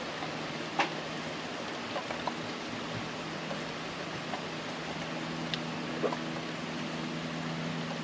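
Steady hiss of rain falling in a summer storm, with a few louder drops ticking close by, the sharpest about a second in and about six seconds in. A faint low steady hum comes in about five seconds in.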